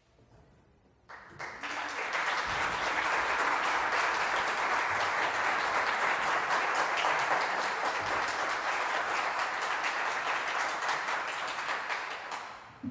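Audience applauding in a concert hall. It starts about a second in, holds steady, and dies away near the end.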